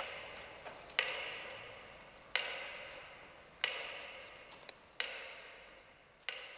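Sharp single strikes at a slow, even pace, about one every second and a third, each ringing out in a long echo that dies away before the next, with a few faint ticks between them.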